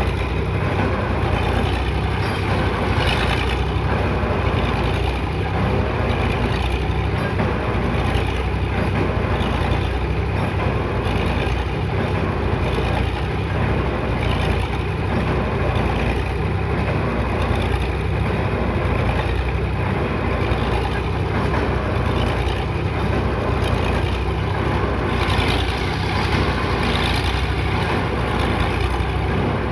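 Heavy diesel construction machinery running steadily, a low engine drone with mechanical noise on top.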